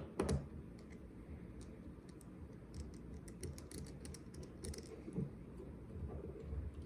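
Light, scattered clicks and scrapes of a small screwdriver and metal parts as the screws are taken out of a Robur safety deposit box lock, with two sharper clicks right at the start.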